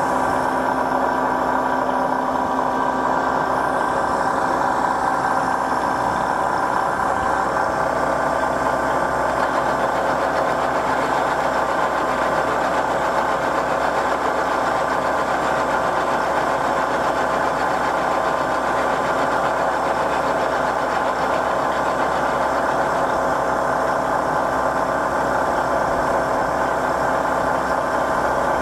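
Turn-Pro vertical milling machine's spindle running steadily with an end mill cutting across the top of a part as the table is fed in X, a steady hum with several steady tones.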